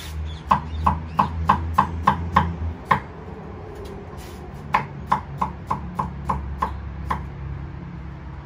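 Kitchen knife chopping peeled turnip into chunks on a wooden chopping board: two runs of steady knocks, about three a second, with a pause of a second or two between them.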